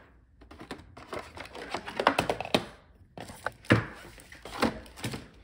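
Plastic packaging being handled: a vacuum-formed plastic tray and a box shifted and lifted, crackling and clicking, with a few sharper knocks.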